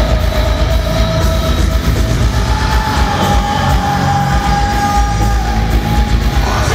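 Progressive metalcore band playing live and loud: heavy distorted low end under a long held high note that steps up in pitch about two and a half seconds in and holds until near the end.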